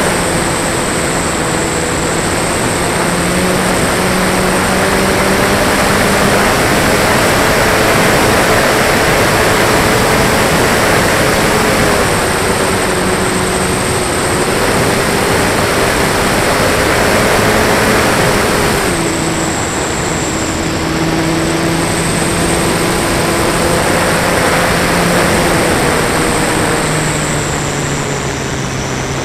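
Flyzone Beaver electric RC model plane's motor and propeller, heard from on board in flight: a steady hum that shifts in pitch with throttle over loud rushing airflow, with a high whine above. The pitch steps down about two-thirds of the way through.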